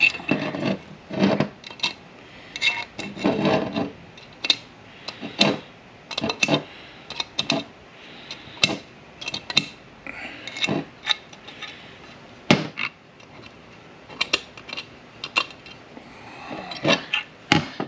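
Metal parts and hand tools clinking and knocking against the shift tower of an M5R1/M5R2 manual transmission as its detent pieces are worked out: irregular sharp clicks and taps, some ringing briefly.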